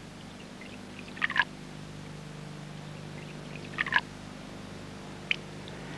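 Liquid dripping from glass tubes into beakers of oil and water: a few short drips, about a second and a half in, near four seconds and a small one near the end, over a steady low hum.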